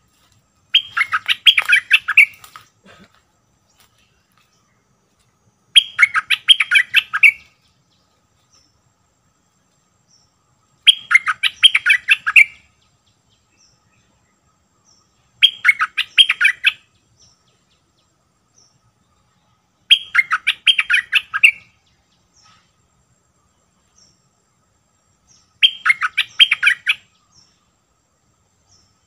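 A stripe-throated bulbul singing the same short, rapid, bubbling phrase six times, about every five seconds, each phrase lasting about a second and a half.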